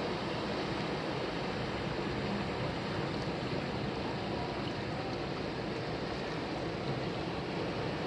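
Strong surf breaking offshore and washing in shallow water around rocks, a steady rushing of waves.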